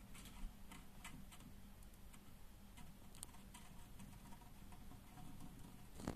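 Faint, irregular clicks and taps from a giant mud crab's shell and legs against a plastic tub, with one louder tap near the end, over a low steady hum.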